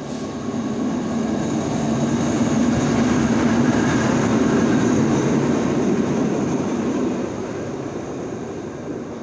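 Alsthom AHK diesel-electric locomotive running past at low speed while shunting, its engine a steady drone with a held hum. The sound swells as it comes alongside and fades as it moves away.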